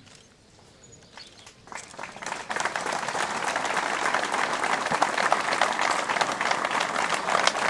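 Crowd applause: faint at first, then many people break into clapping about two seconds in, and it keeps going strongly.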